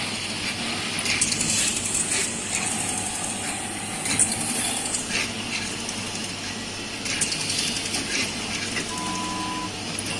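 Siemens ADVIA 1800 clinical chemistry analyzer running: a steady mechanical hum and hiss with many quick clicks from its moving parts. A short steady tone sounds about nine seconds in.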